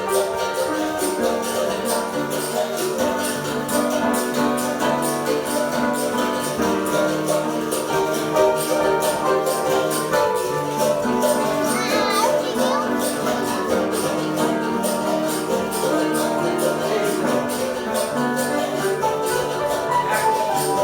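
Piano playing sustained chords and notes, with caxixi basket shakers rattling a steady, even rhythm over it.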